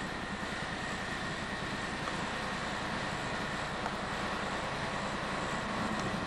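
Steady outdoor background noise with a low hum and a faint high whine, unchanging and without distinct events.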